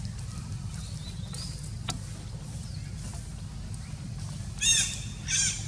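Two short, high-pitched animal calls near the end, each arching up and down in pitch, over a steady low rumble.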